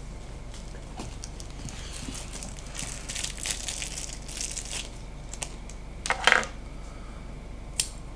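Hands crinkling and tearing something dry and papery, a light rustling for a few seconds, then a louder burst of sharp crackles about six seconds in and one more short crackle near the end.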